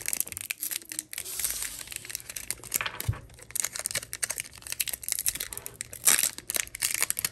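Foil wrapper of a Pokémon trading-card booster pack crinkling and tearing as it is handled and torn open: a dense run of crackles, loudest about six seconds in.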